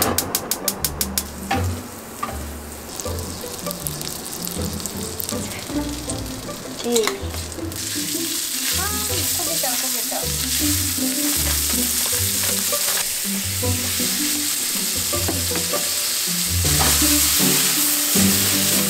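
Thin slices of meat sizzling in butter in a frying pan, stirred with wooden chopsticks. The sizzle sets in about eight seconds in and grows louder near the end. Soft background music plays throughout.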